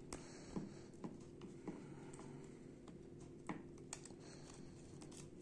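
Faint plastic clicks and taps from handling a plastic action figure and pushing small blade accessories into its hands: about half a dozen separate short clicks, over a low steady hum.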